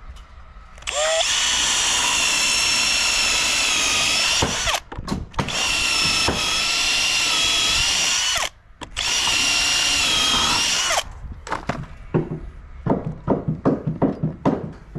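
Power drill with an eight-millimetre bit boring holes for screw bolts into timber floor framing. It runs steadily in three long goes with short breaks between them, then a run of short irregular knocks near the end.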